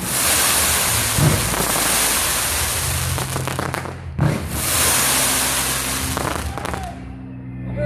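Fireworks display: a dense, continuous crackling of bursting shells, broken by deep booms about a second in and again just after four seconds, the crackle thinning out near the end.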